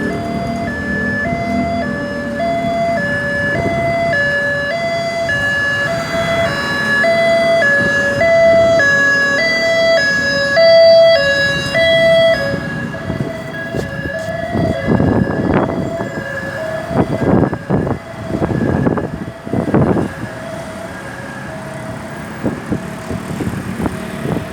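Ambulance's two-tone hi-lo siren, alternating between two pitches about once a second, growing louder to a peak about eleven seconds in and then fading as it passes. In the second half, several bursts of low rumbling noise stand out over the fading siren.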